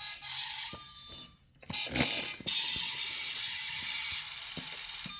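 A toy concrete mixer truck's battery-powered sound module playing an electronic sound effect through its small speaker. The sound breaks off briefly about a second and a half in, then resumes and runs on steadily.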